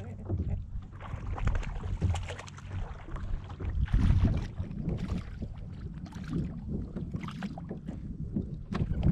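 Wind buffeting the microphone while a hooked bass thrashes and splashes at the surface beside a kayak. The loudest splash comes about four seconds in.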